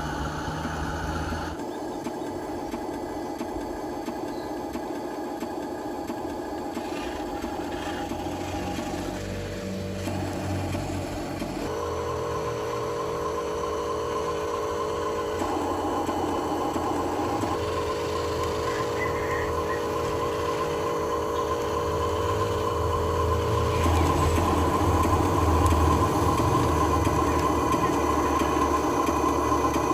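Small electric motors and plastic gearboxes of hobby-grade radio-controlled construction toys whirring, their pitch switching abruptly every few seconds as motors start, stop or change speed, louder in the last few seconds.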